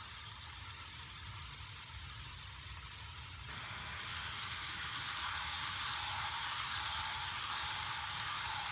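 Steady hiss from a model train's sound board, played through a small speaker that gives almost nothing below the upper midrange. It gets suddenly louder about three and a half seconds in and keeps swelling a little after that.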